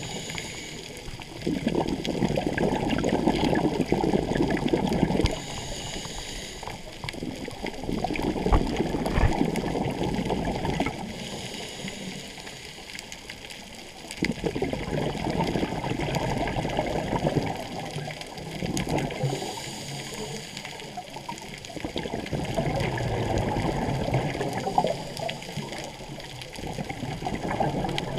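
Scuba diver breathing through a regulator, recorded underwater: rushing bursts of exhaled bubbles a few seconds long, about every six seconds, with a fainter hiss of the inhale between them.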